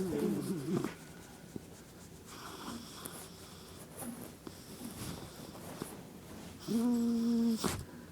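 Pet dog making odd vocal noises: a wavering whine in the first second, faint wheezy snuffles, then a steady held whine for about a second near the end.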